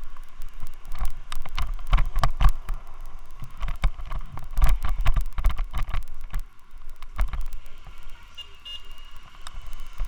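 Irregular rattling and knocking from a loose helmet mount shaking a Xiaomi Yi action camera, over a low rumble on its microphone; the clatter is the mount's fault, not the camera's. A faint high tone comes in near the end.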